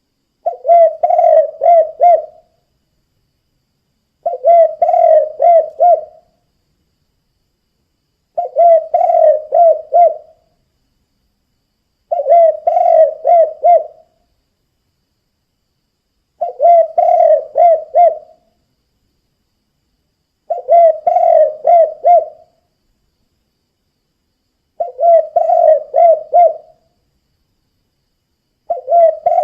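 Spotted dove (tekukur) cooing its "kuk 2" song: a phrase of five or six quick, low coos lasting about two seconds, repeated evenly about every four seconds.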